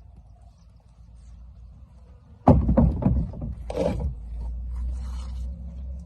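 A sudden heavy thump about two and a half seconds in, then a few more knocks and a metal clank, followed by a steady low rumble.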